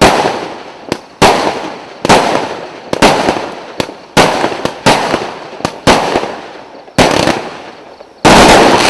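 VH-FAN-02 'Curacao' consumer firework cake of 49 shots of 0.8-inch calibre, firing shot after shot about once a second, each a sharp bang with a fading tail. A denser, longer, louder burst comes about eight seconds in.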